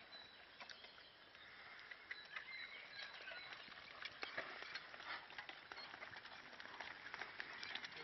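A pair of cobs pulling a horse-drawn plough: faint, scattered light clinks and clicks from the harness and trace chains as they walk through the turned soil.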